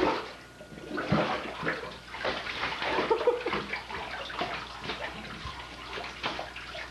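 Bath water splashing and sloshing irregularly in a tub as a Dalmatian is washed by hand.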